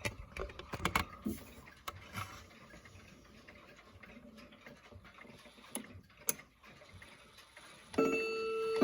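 Hermle 341020 clock movement ticking with scattered mechanical clicks, then about eight seconds in its chime begins, several ringing tones that sustain and overlap.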